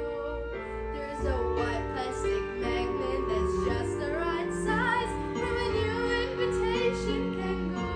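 A young girl singing a musical-theatre song solo over an instrumental accompaniment with a steady bass line. Her voice comes in about a second in, holding some notes with a slight waver.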